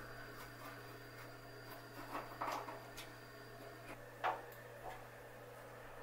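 Faint clicks and scrapes of a screwdriver working T20 Torx screws in a washing machine's sheet-metal cabinet, with a sharper click about four seconds in, over a low steady hum.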